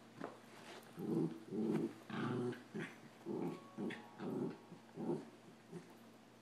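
Samoyed and Rat Terrier puppies growling as they play fight: a run of short growls, one after another, starting about a second in and stopping shortly before the end. The growls are play, not aggression.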